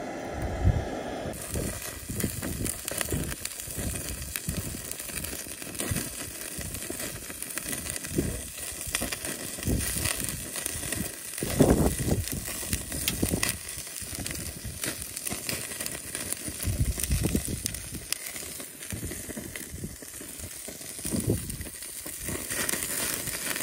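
Wagyu beef steak sizzling and crackling on a mesh grill over a butane cassette gas burner, fat dripping into the flame and popping irregularly, with a louder burst about halfway through.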